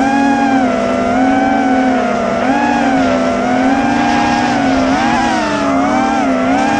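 GEPRC iX5 FPV quadcopter's brushless motors and propellers whining in flight, the pitch rising and falling constantly with the throttle.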